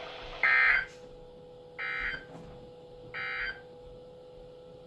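Emergency Alert System end-of-message signal: three short buzzing bursts of digital data tones about a second and a half apart, the first the loudest, marking the end of the warning. A faint steady hum runs beneath them.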